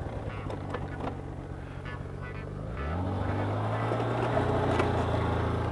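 Snowmobile engine running at low speed, then revving up about three seconds in and holding steady at a higher, louder pitch.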